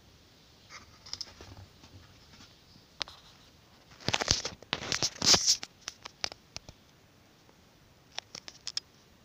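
Handling noise during an unboxing: a few scattered clicks, then a burst of scratchy rustling about four seconds in, lasting under two seconds, followed by several light clicks near the end.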